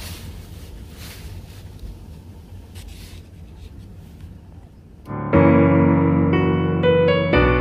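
Faint background hiss and low hum, then piano music starts suddenly about five seconds in and is much louder, with notes held and chords changing.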